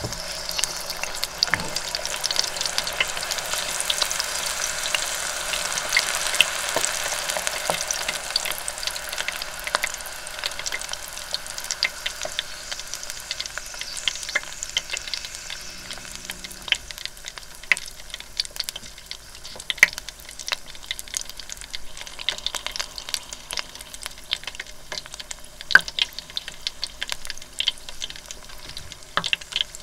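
A frozen loempia deep-frying in the hot oil of an electric deep fryer, the oil sizzling and crackling with many small pops around it. The sizzle is densest in the first several seconds after the roll goes in, then thins to a lighter sizzle with scattered sharp pops.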